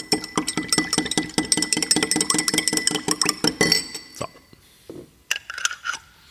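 Long metal bar spoon stirring briskly in a glass to work in a spoonful of raspberry-rhubarb jelly, clinking rapidly against the glass with a ringing tone for about four seconds. A few soft knocks follow.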